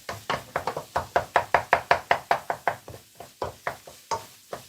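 A cooking spoon knocking rapidly against a pan, about seven strikes a second, as scrambling egg is chopped into small pieces; the strikes pause briefly about three seconds in, then resume more sparsely.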